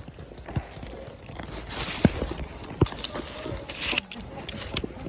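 Footsteps moving through woodland undergrowth, with rustling leaves and brush and a couple of heavier footfalls or knocks a little after two seconds and near three seconds.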